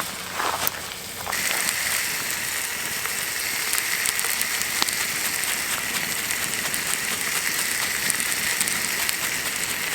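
Food sizzling and spitting in a hot pan over a campfire. It starts suddenly about a second in, then keeps up a steady crackling hiss full of small pops.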